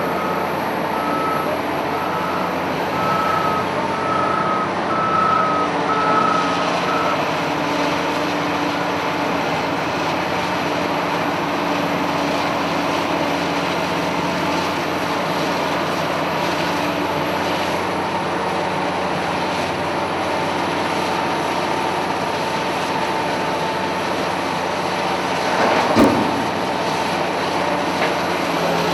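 Cat 992K wheel loader working, its big diesel running steadily, with a reversing alarm beeping about twice a second that stops about seven seconds in. A single loud knock comes near the end.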